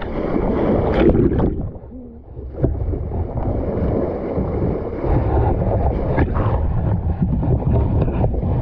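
Sailboat's bow cutting through open sea, with water rushing and splashing against the hull and wind buffeting the microphone; it briefly goes quieter about two seconds in.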